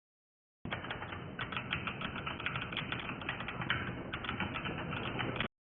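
Typing on a Zifriend AG68 mechanical keyboard: a fast, dense run of key clicks that starts abruptly about half a second in and cuts off sharply just before the end.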